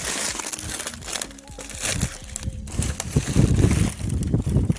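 Rustling and crunching of footsteps over scattered old sheets and dry debris, with a run of small clicks and cracks and a heavier stretch about three seconds in.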